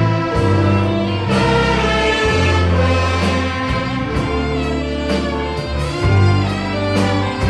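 Orchestra playing, with bowed strings and brass over a moving bass line and some sharp percussive strikes.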